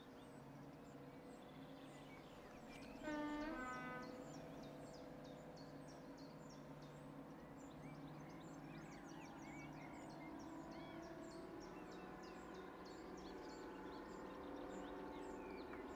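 Small birds chirping and singing over a faint, steady low hum that slowly grows louder. About three seconds in comes one louder, pitched call lasting under a second.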